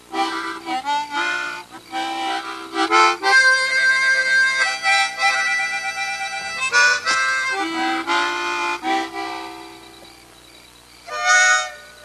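Harmonica playing a melody, with a long held chord about three seconds in. The playing fades almost away about ten seconds in and comes back strongly near the end.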